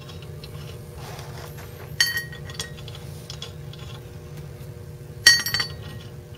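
Stainless steel bolts and washers clinking against the brass cover plate of a water meter as they are set into its screw holes: two sharp, ringing metallic clinks, about two seconds in and again about five seconds in, with a few lighter taps between.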